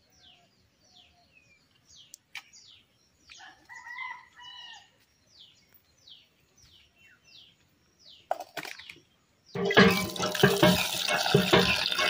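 A bird calls repeatedly with short falling chirps. About three-quarters of the way in, water starts pouring loudly and splashing into a metal bowl full of small eel-like fish.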